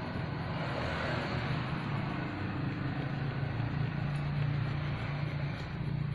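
Steady low engine hum with road noise, as heard from inside a moving vehicle.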